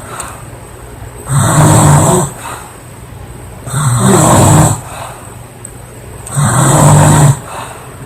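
A woman snoring loudly in a steady rhythm: three snores, each about a second long, roughly one every two and a half seconds.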